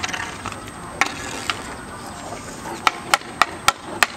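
Hockey stick blade knocking a tennis ball on asphalt during stickhandling: two sharp knocks early on, then a quick run of five, about three a second, near the end.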